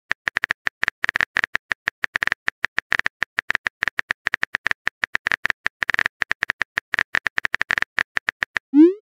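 Phone keyboard typing sound effect: a rapid, irregular run of short clicks, about six to eight a second, ending just before the end in a short rising swoosh as the message is sent.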